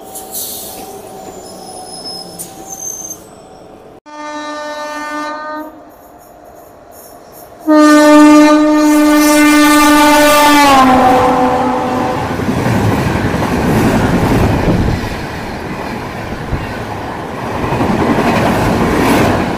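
Electric locomotive of an Indian Railways express sounding its horn: a short blast about four seconds in, then a long, loud blast whose pitch drops as the locomotive passes. The rushing noise and wheel clatter of the train's coaches running by follow.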